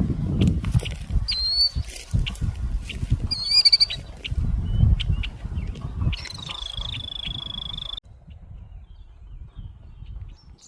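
Wild birds calling: several short, wavering high whistled notes, then one long steady high note that stops suddenly about eight seconds in, over a low rumble.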